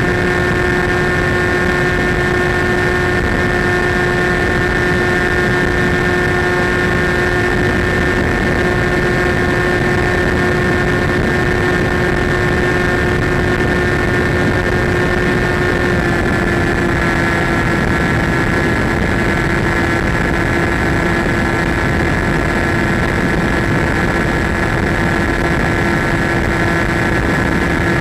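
Electric motor and propeller of a Skywalker RC airplane running steadily in flight, a steady whine over rushing air noise, with the pitch shifting slightly about halfway through as the throttle changes.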